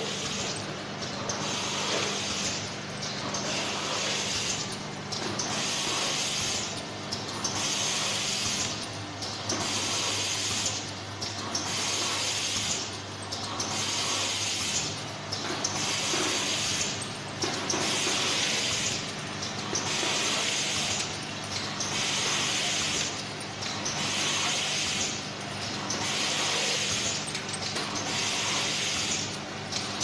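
Automatic vial filling, stoppering and crimp-capping machine running: a steady motor hum, with a hiss about once every two seconds that lasts about a second each time.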